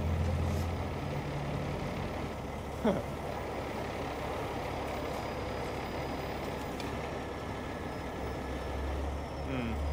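Heavy rotator tow truck's diesel engine running steadily while its winches lift a burnt semi trailer on the boom. A short falling squeal about three seconds in.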